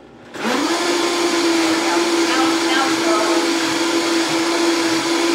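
Countertop blender switched on about half a second in, its motor quickly rising in pitch and then running at a loud, steady whine as it purées a thick green dressing of avocado, herbs and buttermilk.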